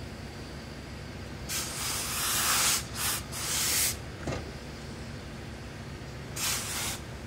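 Tailor's steam iron letting out bursts of hissing steam as it presses suit trousers: a long hiss about a second and a half in, two shorter ones right after, and one more near the end.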